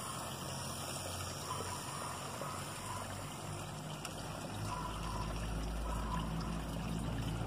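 HO-scale model freight train rolling past on its track: a steady rolling hiss of the wheels on the rails with a low motor hum, and a deeper rumble coming in about two-thirds of the way through.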